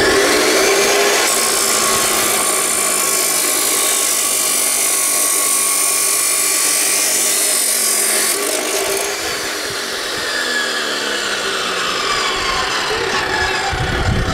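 DeWalt D28715 14-inch abrasive chop saw starting up with a rising whine, then its abrasive wheel grinding through steel tubing for about seven seconds. After the cut the motor coasts down with a falling whine.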